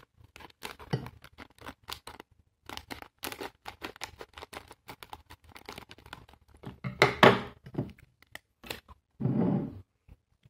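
Scissors snipping through a plastic snack packet, with the packet crinkling in hand. There is a louder rustle about seven seconds in.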